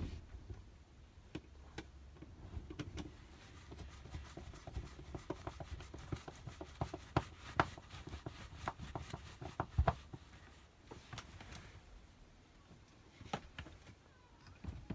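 Hand screwdriver working a screw into the aluminium cassette of a caravan window blind: irregular clicks, knocks and scrapes of the tool and plastic corner fittings, coming thick and fast in the middle with one heavier knock, then thinning out.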